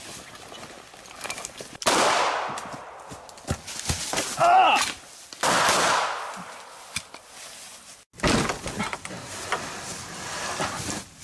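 Three loud, sudden bangs a few seconds apart, each trailing off over a second or so, with a man's short pained cry between the first and second.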